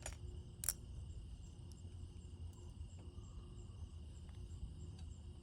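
Faint, steady, high-pitched insect chirring throughout. Two sharp metal clicks come in the first second, from a bolt being handled.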